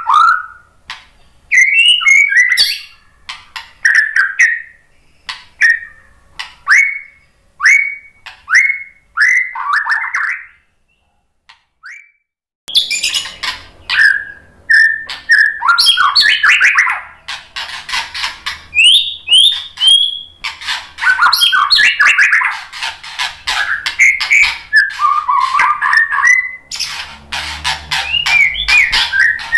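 A male white-rumped shama singing. First comes a run of short sweeping whistles, about one a second. After about two seconds of silence, a dense, varied song of whistles and glides follows, crowded with rapid clicking notes.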